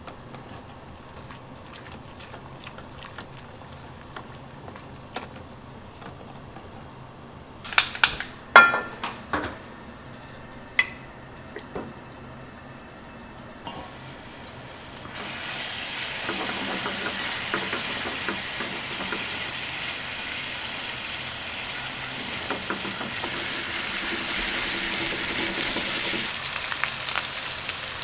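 A few sharp metallic clanks with a short ring, like a pan and utensils knocking. About halfway in, food starts sizzling loudly in hot oil in a frying pan, with a steady hiss.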